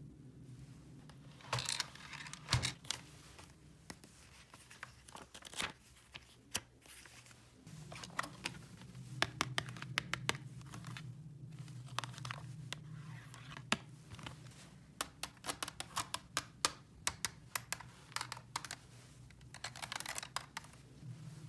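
Packaging being torn and crinkled by hand, with many small sharp clicks of plastic toy pieces being handled, over a low steady hum.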